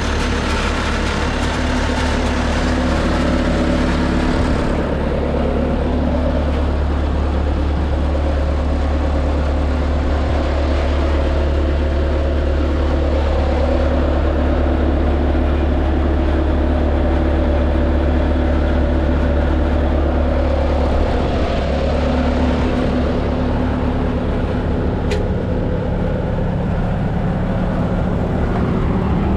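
A 2004 Bobcat S250 tracked skid steer's diesel engine running steadily, with its pitch shifting slightly now and then.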